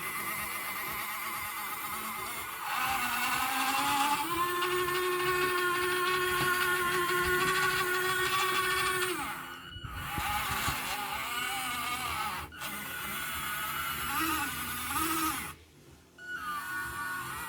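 Electric drive motors and gearboxes of an RC model excavator whining as it works. The whine rises in pitch about three seconds in, holds steady for several seconds, then drops away and cuts in and out, with brief gaps near the end.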